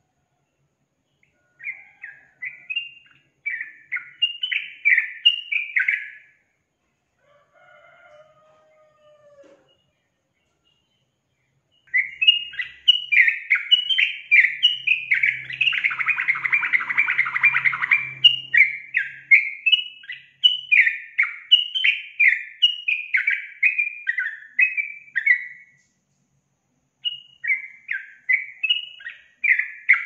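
Caged yellow-vented bulbul (trucukan) singing in long runs of quick, bubbly chattering notes. A short burst early on is followed by a pause of several seconds, then a long unbroken run that is loudest in its middle, and another run near the end.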